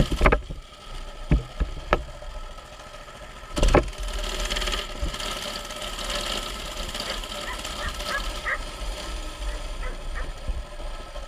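Mini bike's small engine running steadily under way, with several loud knocks and thumps as the bike jolts over rough ground. The loudest come in the first half second and again around four seconds in.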